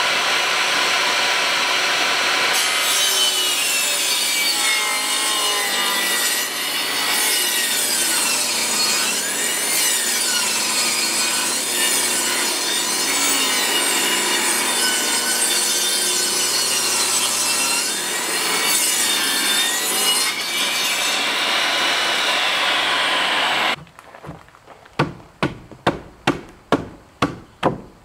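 Porter-Cable table saw running and ripping a rough-sawn board lengthwise, the blade's pitch dipping and recovering as it loads in the cut. Near the end the saw sound cuts off abruptly and a hammer drives nails, about two blows a second.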